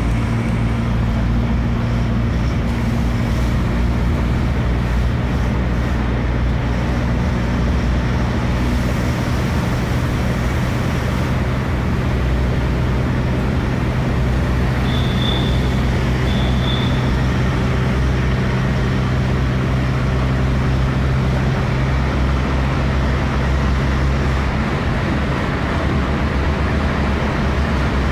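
Steady road and engine noise heard from inside a car's cabin, cruising at highway speed through a tunnel, with a strong low hum.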